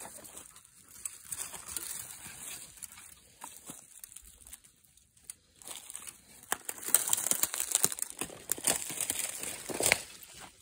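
Dry leaves and brush rustling and crackling underfoot in irregular bursts. The sound is fainter at first and thicker and louder through the second half.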